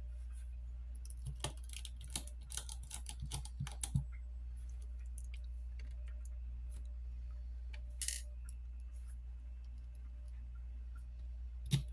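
Small sharp clicks and taps from handling tiny screws, a screwdriver and phone parts during reassembly, clustered in the first few seconds, with a short scrape about eight seconds in, over a steady low hum.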